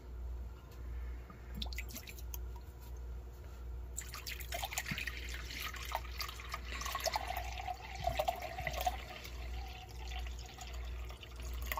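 Water poured in a steady stream into a glass measuring cup, starting about four seconds in and running until near the end, after a few light handling clicks.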